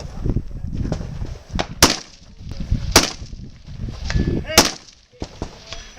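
Three rifle shots, about a second and then a second and a half apart.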